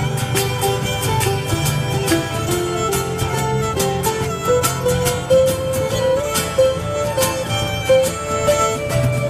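Live acoustic-electric band playing an instrumental passage: a fiddle carries the melody over strummed acoustic guitar, electric guitars and a steady beat on a cajon.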